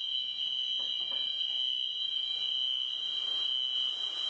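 Electronic alarm sounding one steady, unbroken high-pitched tone, with a couple of faint knocks about a second in.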